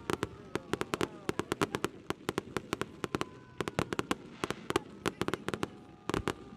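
Fireworks going off in rapid succession: dense sharp cracks, many a second, coming in clusters with brief thinner stretches between.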